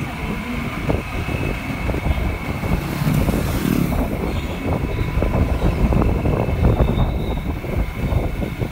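Riding a motorcycle on the road: gusty wind noise on the microphone mixed with the bike's engine and tyre noise, with a thin steady high whine in the background.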